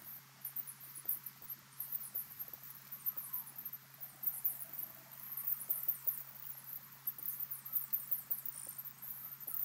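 Outdoor pond ambience: rapid, very high-pitched chirps and ticks, insect-like, over a low steady hum.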